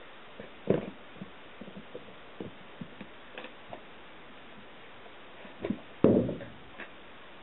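Two cats play-fighting on a blanket over tatami: scattered soft taps and scuffles, with two louder thumps, a short one just under a second in and the loudest about six seconds in.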